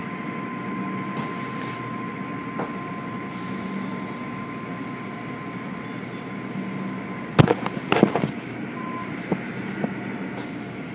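Automatic car wash tunnel machinery running as a steady wash of noise with a faint steady hum. About seven and a half seconds in comes a quick cluster of knocks and clatters, the loudest thing heard.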